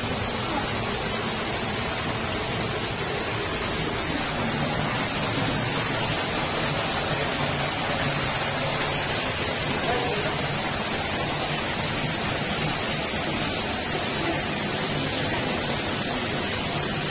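Steady rush of a small waterfall pouring into a pool in a narrow rock canyon.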